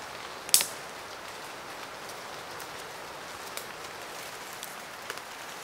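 Steady hiss like falling rain, with one sharp click about half a second in and a few fainter ticks later.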